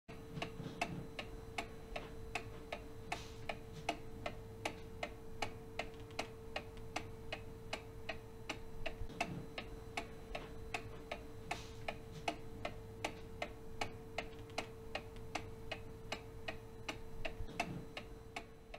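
A clock ticking evenly, about three ticks a second, with a faint steady hum underneath.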